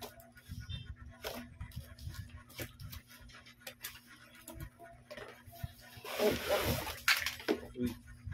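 A cardboard tripod box being opened by hand: scattered taps and scrapes on the cardboard, then a louder rustling scrape about six seconds in as the tripod in its fabric carry bag is slid out of the box.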